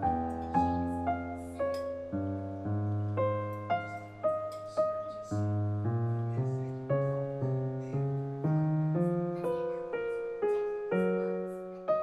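Background solo piano music: a gentle melody of single notes, about two a second, over held bass notes.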